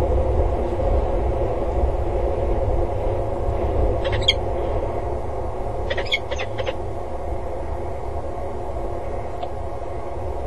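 Peregrine falcon calling in flight: one short call about four seconds in, then a quick run of three or four sharp notes about two seconds later, over a steady low rumble.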